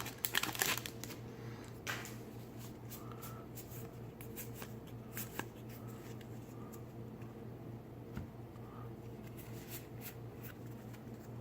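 Magic: The Gathering cards being handled and dealt onto sorting piles: a brief rustle at the start, then soft, scattered card flicks and taps over a low steady hum.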